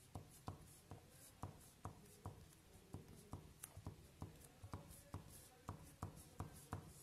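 Faint pen-on-paper sounds: short taps and scratches of a pen tip as small circles and dots are drawn, about three ticks a second.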